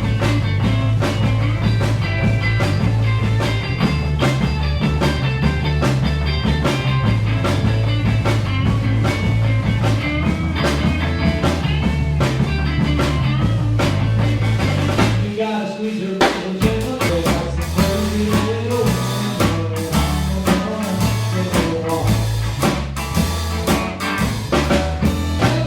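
A rock band playing, with guitar, bass and drums. About 15 seconds in, the heavy bass line drops out and a sparser passage follows, marked by sharp drum hits.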